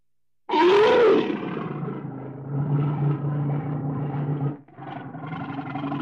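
Brown bears growling and roaring, starting suddenly about half a second in with a loud roar that rises and falls in pitch, then a steady low growl that breaks off briefly near the end and picks up again.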